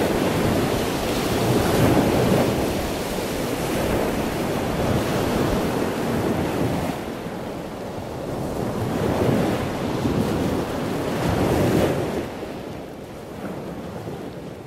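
A vehicle's front tyre ploughing through floodwater: a continuous rush and slosh of churned water mixed with wind buffeting the microphone, surging every few seconds and dying down near the end.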